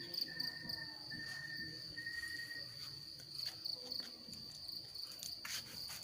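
Crickets chirping in a steady, high-pitched, finely pulsing trill, with a second, lower tone that comes and goes in short stretches.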